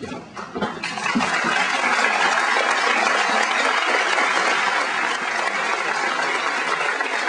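Crowd applauding, swelling in about a second in and then holding steady.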